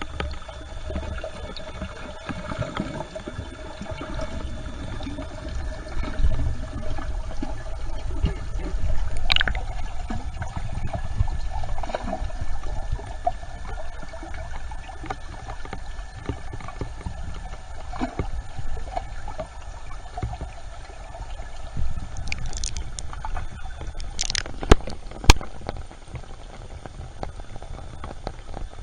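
Water sloshing and gurgling around a submerged camera, with a low rumble and a few sharp clicks; the two loudest clicks come close together near the end.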